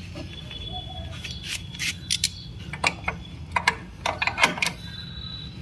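Irregular metallic clicks and clinks of a pipe wrench being handled and fitted onto a motorcycle's exhaust pipe joint, coming in small clusters with the loudest about four and a half seconds in, over a steady low hum.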